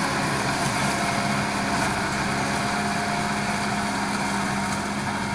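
Kubota MU5501 tractor's four-cylinder diesel running steadily under load while driving a Shaktiman rotary tiller through soil, getting slightly quieter as the tractor pulls away.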